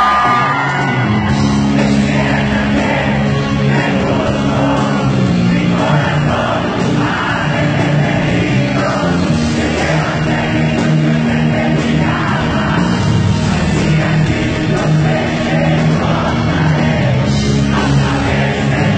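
Gothic rock band playing live: a male singer sings into a microphone over keyboards and sustained low notes.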